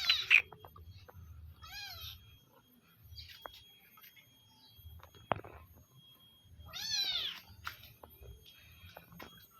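Village cat meowing for food: a short meow about two seconds in and a louder, longer one about seven seconds in, with a few sharp clicks between them.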